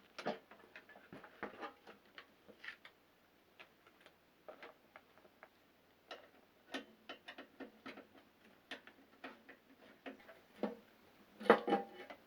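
Irregular small clicks and metallic clinks of hand tools and sheet-metal parts as a microwave oven is taken apart to get at its magnetron, with a louder clatter near the end.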